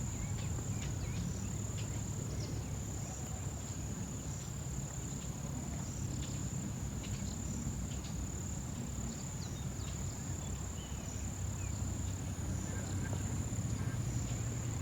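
Insect's continuous high-pitched trill, held steady, with faint scattered short chirps and a low rumble of wind underneath.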